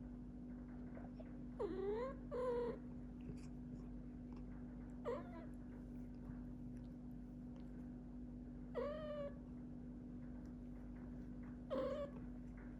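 A house cat meowing in five short, separate calls a few seconds apart, some bending up and down in pitch, over a steady low hum.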